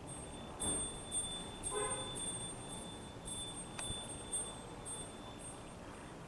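Small high-pitched bell rung repeatedly, about two strikes a second, its tone ringing on between strikes.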